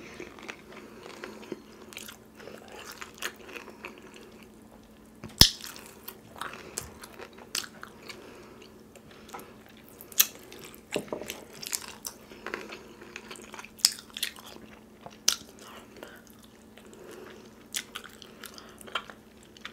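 Close-miked eating sounds of fried chicken: chewing, lip smacks and wet mouth clicks as meat is picked and sucked off a bone. One sharper click comes about five seconds in, over a faint steady hum.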